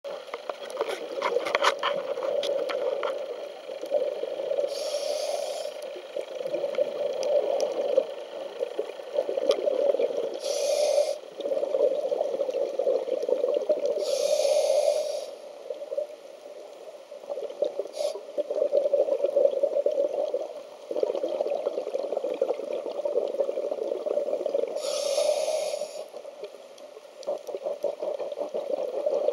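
Underwater sound of a scuba dive: a steady, muffled water rush that swells and drops, with the diver's regulator breathing and four short hissing bursts of exhaled bubbles.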